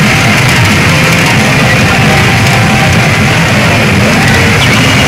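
Loud, steady music playing from a Mizuho 'Midori Don Hanabi de Bon Giorno' pachinko machine during its feature animation.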